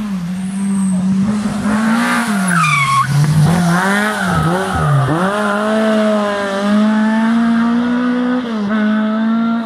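Lada rally car's four-cylinder engine: the revs fall and dip as it slows through a hairpin, with a short tyre squeal about three seconds in, then hold steady as it pulls away.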